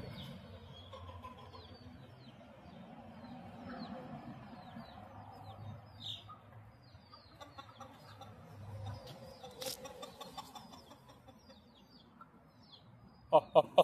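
A flock of chickens clucking, with many short high peeps and chirps throughout. A single sharp click comes just before ten seconds in. Near the end a loud, rapid series of evenly spaced calls begins.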